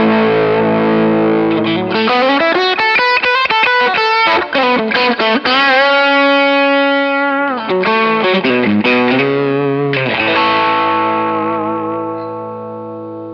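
Electric guitar played through a KingTone MiniFuzz v2 fuzz pedal, heavily distorted: a held chord, quick lead runs, a long note with vibrato, more runs, then a final chord left ringing and fading out near the end.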